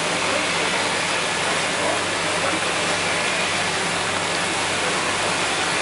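Steady, even rushing noise with a faint low hum underneath, typical of an offshore oil platform's running machinery.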